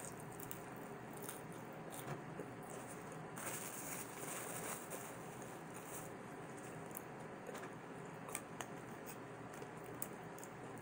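Faint eating sounds: quiet chewing of pizza with small clicks, and a short paper-napkin rustle about a third of the way in.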